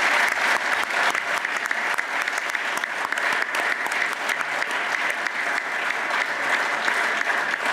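Applause from a room of people, a dense steady patter of many hands clapping.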